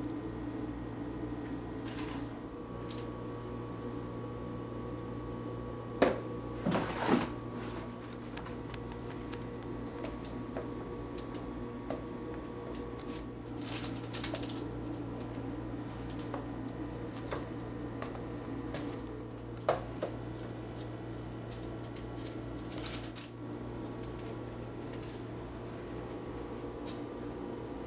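Light scraping and clicking of a knife spreading Cool Whip over an ice cream sandwich cake on wax paper, with a few sharper knocks about six, seven and twenty seconds in, over a steady low hum.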